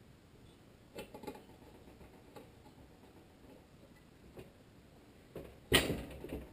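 Faint metal clicks of a crankshaft and connecting rod being handled inside a Tecumseh HSK70 engine's crankcase, then, near the end, a loud clunk and rattle as the engine block is turned over on the bench.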